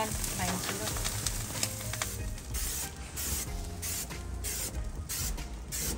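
Hot gas barbecue grill hissing and sizzling, with a run of short scraping or spraying strokes on the grates from about two seconds in.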